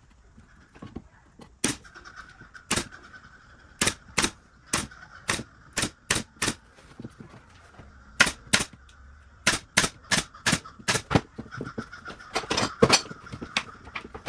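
Pneumatic brad nailer firing about two dozen sharp shots at an irregular pace, some in quick pairs, over a faint steady whine, as small wooden box pieces are fastened.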